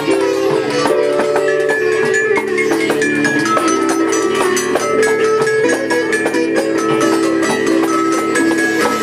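Live music: a long-necked plucked string instrument playing a melody of held notes that change step by step, over a quick, even pulse of plucked or struck strokes.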